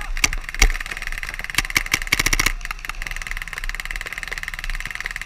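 Paintball markers firing: a few sharp single shots and short strings, then from about halfway a continuous, very fast stream of shots, the rapid fire of electronic markers.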